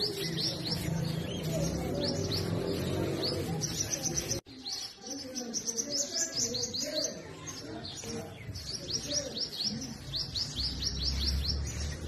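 Sunbird calling: runs of quick, high, downward-sweeping chirps, several notes to a run, repeated one after another. The sound cuts out for a moment a little over four seconds in.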